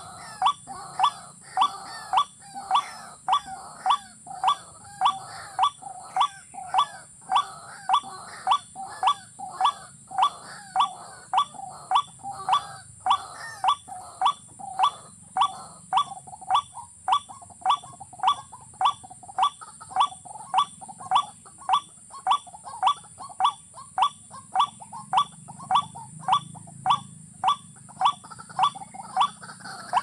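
Watercock calling: a steady series of short, sharp, rising notes, just under two a second, kept up without a break.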